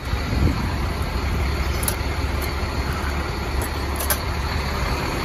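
A steady low rumble, with a few light metallic clicks about two and four seconds in as a padlock is handled on a steel locker door.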